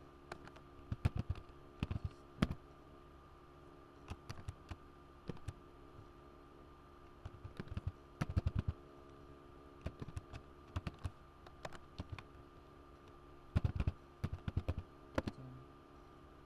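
Typing on a computer keyboard: bursts of keystrokes with short pauses between them, over a faint steady hum.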